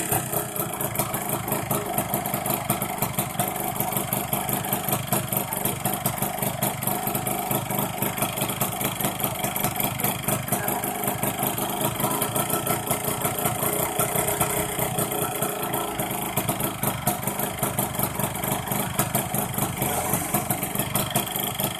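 Yamaha F1ZR's single-cylinder two-stroke engine idling steadily, heard up close beside the cylinder.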